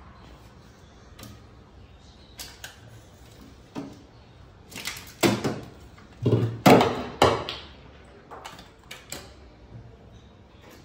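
Knocks and rattles of a toddler handling things inside an open refrigerator, its shelves, door and containers. A few light clicks come first, then a louder run of knocks and clatter about five to seven seconds in.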